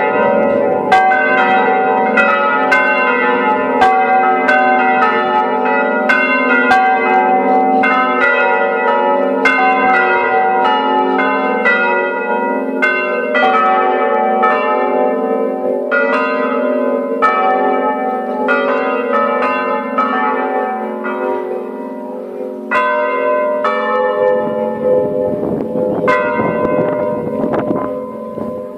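Five church bells ringing together in a full peal (plenum), their strokes overlapping in a continuous stream over the sustained hum of the bells.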